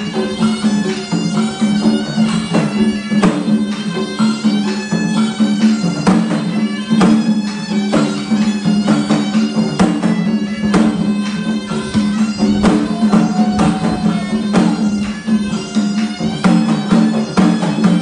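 Traditional Vietnamese folk music: a reedy shawm-like wind instrument plays a continuous melody over a steady low drone, with barrel drums struck by hand beating along.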